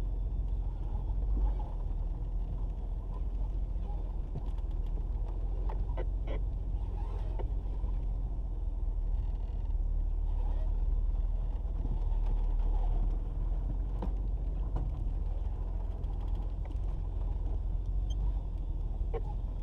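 Jeep Cherokee XJ driving slowly over a rough dirt trail, heard from inside the cab: a steady low rumble of engine and tyres, with scattered knocks and rattles as it goes over bumps.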